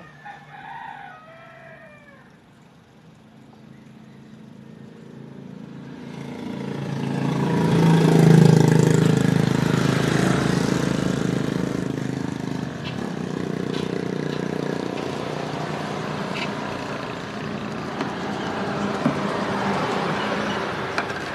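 A rooster crows once at the start. Then a loud rushing noise with a low rumble swells up over several seconds, is loudest about eight seconds in, and holds until the end.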